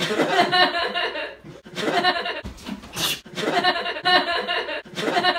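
A person laughing loudly in several bouts with short breaks between them.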